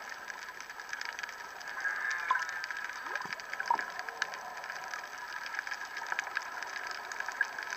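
Humpback whale song heard underwater: a few short calls that glide down and back up in pitch, over a constant crackle of fine clicks and hiss.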